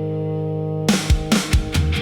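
Instrumental rock music: a held guitar chord rings steadily, then drum hits come in about halfway through.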